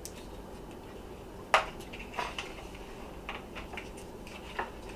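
Several sharp clinks and taps of dishes and cutlery on a table, the loudest about one and a half seconds in.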